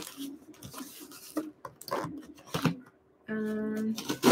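Scissors snipping and scraping through the tape and cardboard of a shipping box in a run of short, crisp cuts. The audio then drops out for a moment, a steady pitched tone sounds for under a second, and a sharp click follows at the very end.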